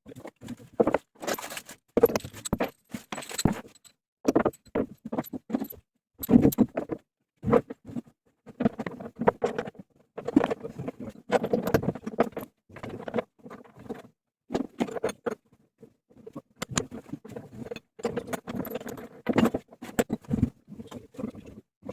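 Irregular clinks, knocks and rattles of hand tools and metal washing-machine parts being handled during disassembly, in quick uneven bursts with short gaps between them.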